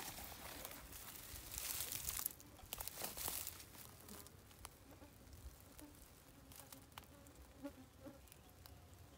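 Quiet outdoor ambience with two short bursts of soft rustling, about two and three seconds in, followed by scattered faint ticks and clicks.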